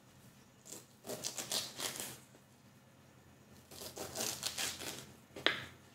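Small kitchen knife scraping and tearing the fibrous skin off a boiled Queensland arrowroot (canna edulis) bulb on a wooden cutting board, in two runs of short rasping strokes, then one sharp tap near the end.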